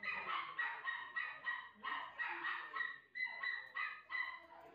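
Shih Tzu puppy yipping over and over in short, high-pitched cries, about three a second.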